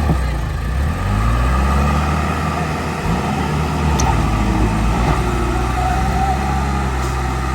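Heavy diesel engine of earthmoving machinery running, its pitch dipping and rising in the first few seconds as the throttle changes, then holding steady.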